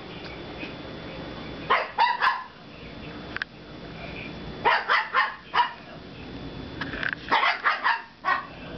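Small dogs play-barking at each other: three quick bursts of high, sharp barks, a few barks each, the last burst the longest.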